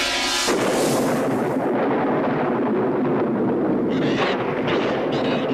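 A loud, steady rushing noise that starts abruptly about half a second in, replacing sustained music. Short bursts of high hiss come over it in the last second and a half.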